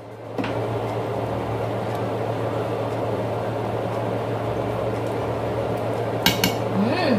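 Steady bubbling hiss of a pot of mung beans simmering in coconut milk, with a few sharp clinks of a utensil against the pot about six seconds in.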